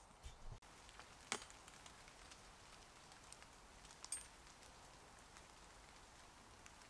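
Near silence over a faint steady hiss, broken by a few short sharp pops, one about a second in and one about four seconds in, from a small wood fire crackling in a folding metal stove under a pot.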